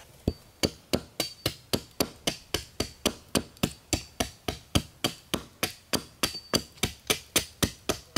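Hatchet chopping bark into small pieces on a wooden block, in rapid, even strokes at about three or four a second.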